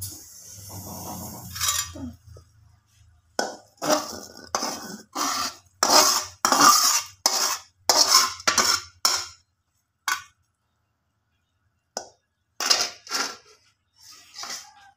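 Metal spatula scraping and knocking against a frying pan, pushing fried chillies, shallots and tomato out of the pan into a stone mortar. The strokes come about twice a second for several seconds, then a few more follow near the end.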